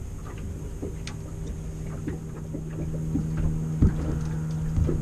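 A passing motorboat's engine drones steadily, coming in about a second in and growing louder. A couple of sharp knocks near the end.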